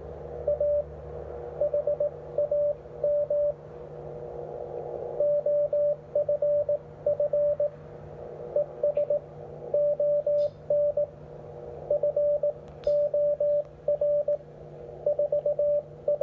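Morse code (CW) signal received on the 17-metre amateur band and played through a Xiegu X6100 transceiver's speaker: a steady mid-pitched tone keyed into dots and dashes over band hiss, with a faint low hum underneath.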